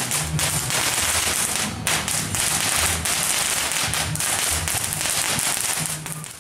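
Firecrackers going off in a dense, rapid, unbroken crackle that cuts off suddenly at the end.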